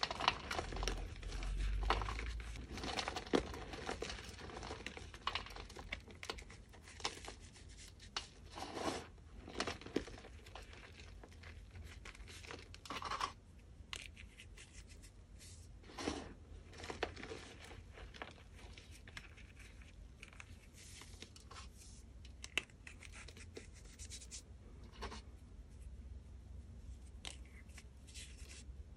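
Reformed gym chalk chunks crushed and squeezed in bare hands into loose powder: irregular soft crunching and crumbling, busiest in the first ten seconds, then scattered single crunches.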